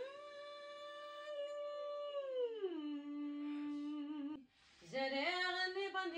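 A woman's singing voice doing a warm-up: a held note that slides down about an octave and holds, then, after a brief pause, a new note that climbs in small steps.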